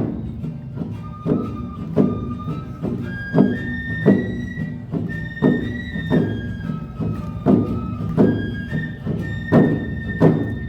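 Awa Odori festival band playing: a bamboo flute carries a melody in long held notes that step up and down, over a steady beat of taiko drum strikes about every two-thirds of a second.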